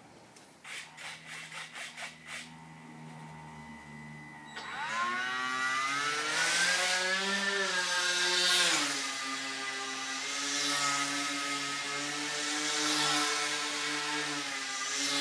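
A tethered RC airplane's electric motor and propeller. After a string of quick clicks, the motor spins up about four and a half seconds in with a rising whine, eases down a little past the middle and then holds a steady whine. The propeller noise swells and fades about every two seconds as the plane circles on its tether.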